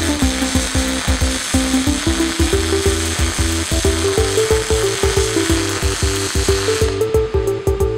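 Steady sizzling hiss of a welding arc over background music with a steady beat; the hiss stops about seven seconds in.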